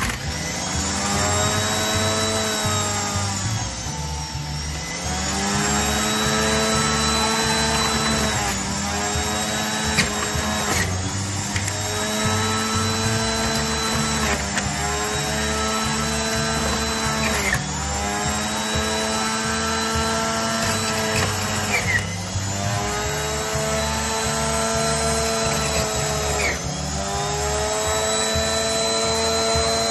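Nutribullet centrifugal juicer's motor whining as fruit is juiced, its pitch dipping and recovering about every four to five seconds as each piece is pushed into the spinning blade, with background music.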